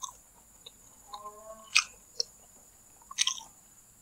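Close-miked chewing of a mouthful of chicken satay: a few wet smacks and clicks of the mouth, spaced out with quiet gaps.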